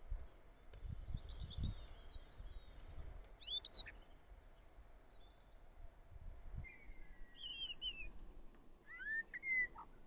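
Songbird singing: several short bouts of high, thin, quickly changing whistled notes, loudest about four seconds in and again near the end. A few low rumbles come in the first two seconds.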